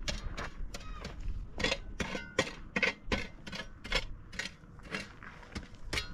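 Metal shovel blade chopping and scraping into stony soil, in quick repeated strokes about two or three a second, some with a short metallic ring.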